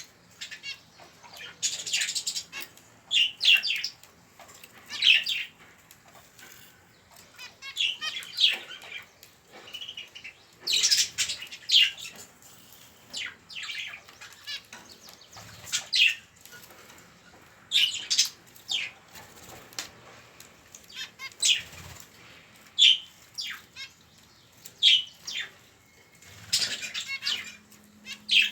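Budgerigar chicks giving short, high, scratchy begging calls in bursts every second or two, as chicks do at feeding time.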